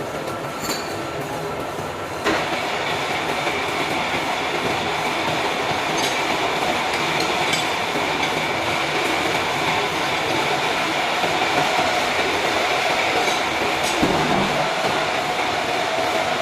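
CNC machine tools running in a metal-machining workshop: a steady mechanical drone with a held high whine, getting louder about two seconds in, and a second steady tone near the end.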